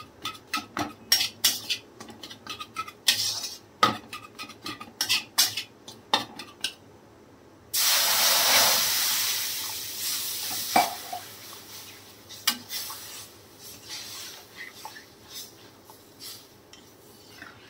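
Steel spatula scraping and clinking against a metal kadhai as ghee-roasted water chestnut flour is stirred. About eight seconds in, water is poured into the hot pan and it sizzles loudly, the sizzle slowly dying away into softer stirring of the wet mixture.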